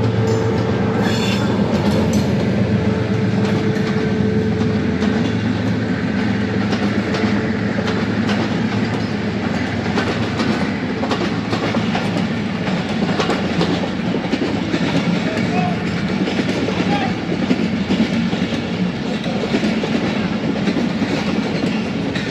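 A diesel locomotive passing close by with its engine droning, followed by a string of passenger coaches rolling past, their wheels clicking and clattering over the rail joints.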